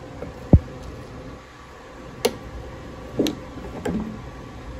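Kitchen handling noises as tongs move chicken strips from an air fryer basket to a ceramic plate: a dull thump about half a second in, then three sharp clinks over the next two seconds, over a steady background hum.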